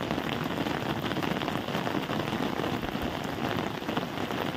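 Heavy rain falling steadily, a dense, even patter with many fine drop ticks.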